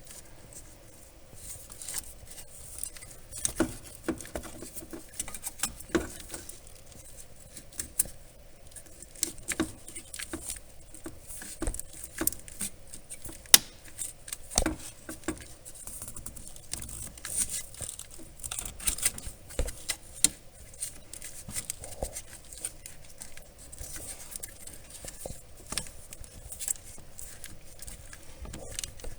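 Scattered light clicks, taps and rustling from hands handling plastic parts and wiring, with a sharper knock about halfway through.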